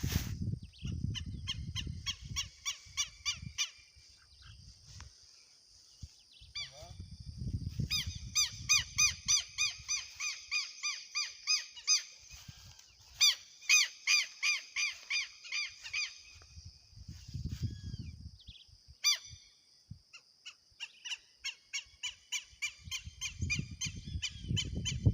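Agitated goose giving rapid runs of repeated calls, about five a second, in several bouts with short pauses between them: the bird is upset at someone close to it.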